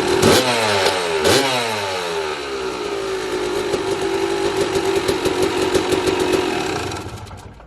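Freshly rebuilt Yamaha YZ300 two-stroke engine with an Eric Gorr 295 kit, running on its first start. It is revved in two quick blips that fall back, then idles steadily before fading out near the end.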